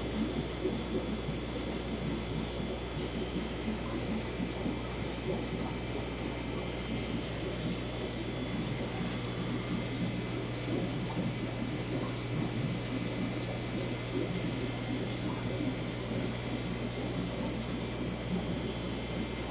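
A cricket chirping in a steady, high-pitched, finely pulsing trill, over a continuous low hum and bubbling noise from aquarium equipment.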